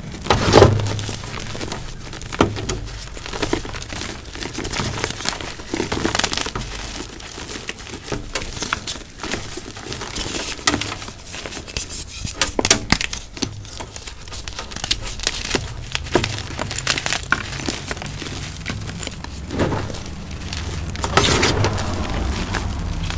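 Pasted (water-set and dried) gym chalk being crushed, giving dense, irregular crunches and crackles.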